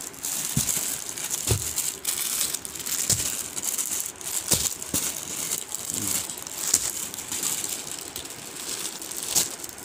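Clear plastic wrappers on packaged suits crinkling and crackling as they are handled, with a few thumps.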